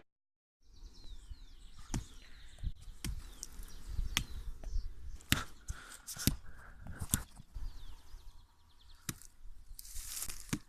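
Outdoor sounds: a series of irregular sharp snaps and clicks, with a few faint, short, falling bird chirps.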